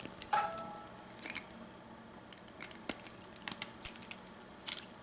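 Keys and a brass padlock being handled: scattered light metallic clicks and clinks, with a brief ring of metal on metal about a third of a second in.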